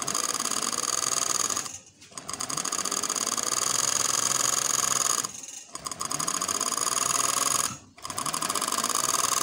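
A 747F industrial overlock sewing machine (serger) running at high speed as fabric is fed through it, overcasting the edge. It stops briefly three times, about two, five and a half and eight seconds in, then starts up again.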